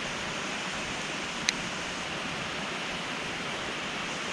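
Steady rush of running water from a small waterfall pouring into the lake, with a single sharp click about one and a half seconds in.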